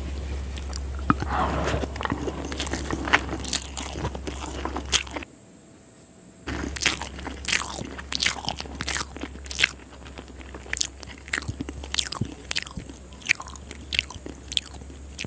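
A person chewing a mouthful of spicy schezwan noodles close to the microphone, with many wet mouth clicks and smacks. There is a short quieter break a little past five seconds in.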